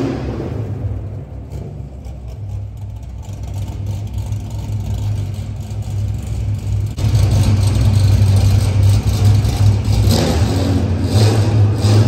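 Low, steady engine rumble of a Chevrolet Camaro ZL1's supercharged V8 as the car moves off slowly. About seven seconds in it changes to a louder engine rumble from a lifted GMC Sierra Denali HD pickup rolling past.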